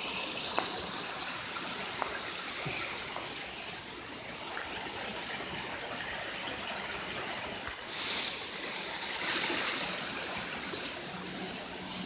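Steady rush of flowing water from a mountain stream and waterfall, with a few faint clicks.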